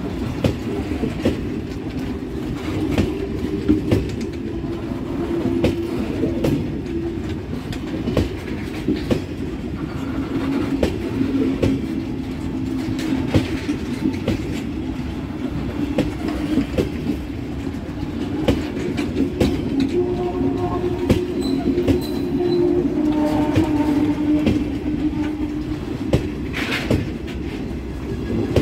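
Empty freight stake wagons rolling slowly past, their wheels clicking over the rail joints, with a squeal from the wheels that comes and goes.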